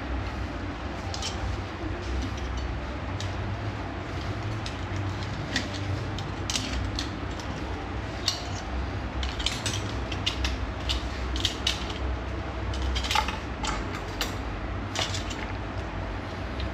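Kitchen utensils and metal cookware clinking and clicking at irregular intervals, busiest in the second half, over a steady low hum.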